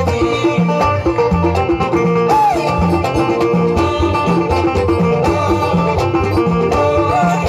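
Live Souss Amazigh tagroupit folk music: a banjo plucks a fast melody over a steady, evenly repeating bass beat.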